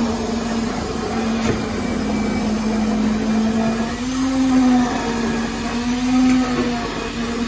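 Concrete-pour machinery running with a steady motor whine that rises in pitch briefly twice, about four and six seconds in.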